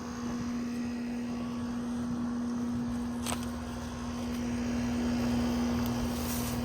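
Outdoor air-conditioner condenser running: a steady compressor hum under the whoosh of the condenser fan, with a single light tick about three seconds in.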